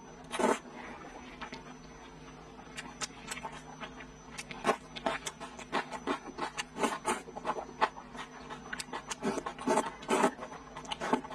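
Close-up mouth sounds of eating: a long slurp of hand-rolled noodles just after the start and another near the end, with rapid wet chewing and lip-smacking clicks in between.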